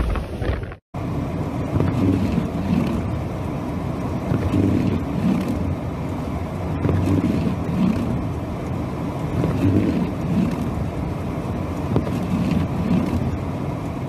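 Inside a car's cabin while driving through a blizzard: steady low rumble of engine and road noise, rising and falling a little. Before it, wind blasting the microphone outdoors stops abruptly at a cut under a second in.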